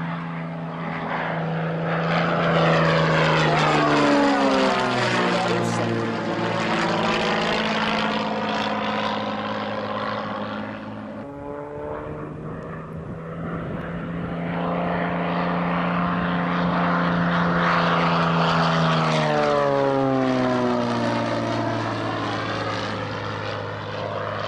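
Single-engine propeller aerobatic plane flying past twice, its engine note loud and dropping in pitch as it goes by each time.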